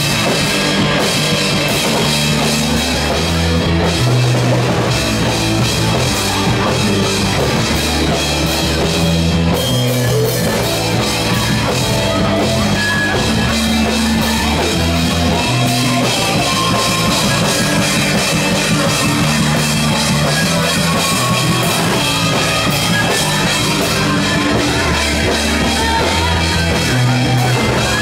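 Live rock band playing loud: drum kit, guitar and a bass line that changes note every second or two.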